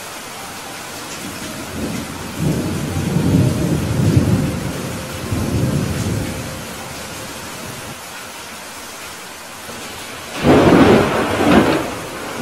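Thunderstorm: a steady hiss of rain, with low rolling thunder from about two to seven seconds in. About ten seconds in comes a louder, sharper thunderclap that dies away over a couple of seconds.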